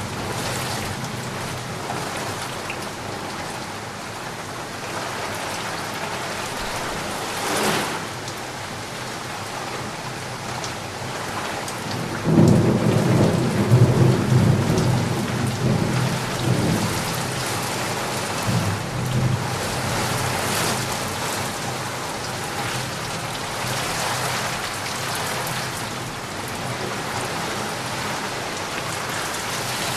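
Steady rain falling, with a roll of thunder that breaks in suddenly a little before halfway, the loudest sound here, and rumbles on for several seconds before fading back under the rain.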